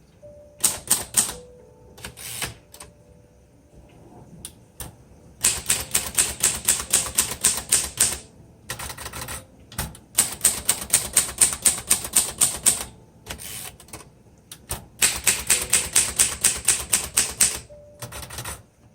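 1956 Royal Quiet De Luxe manual portable typewriter being typed on: a few scattered keystrokes, then quick runs of type-bar strikes at about five a second in bursts of a few seconds with short pauses between. It is typing smoothly, without hesitations.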